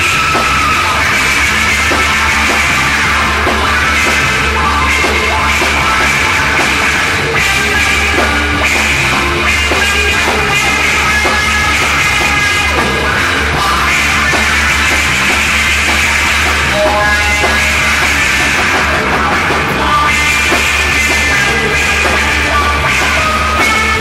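Loud, dense psychedelic rock from a full band recording, playing at a steady level.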